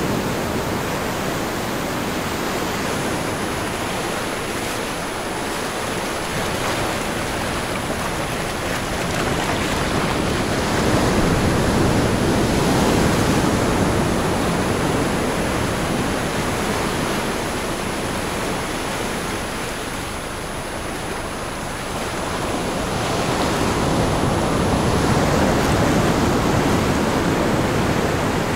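Recorded ocean surf: a steady wash of waves that slowly swells and eases twice. A thin, steady high-pitched tone sits over most of it.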